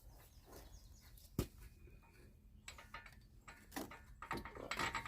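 Scattered metallic clinks and knocks of a truck wheel hub assembly and its bolts being handled and fitted, with one sharp knock about a second and a half in and a flurry of clinks near the end.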